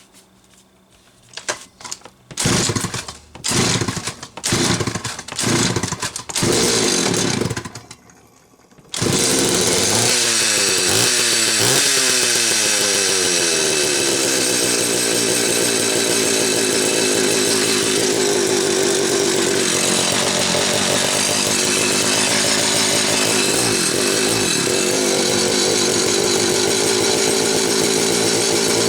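Homelite 330 two-stroke chainsaw being started: a few short bursts as it is pulled over, then it catches about nine seconds in, its pitch swinging up and down for a few seconds before it settles into steady running. The saw has just had a carb kit and new fuel hoses after sitting a while.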